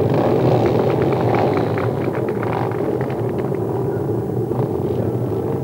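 A row of trail motorcycles running together at idle: a steady, dense low rumble.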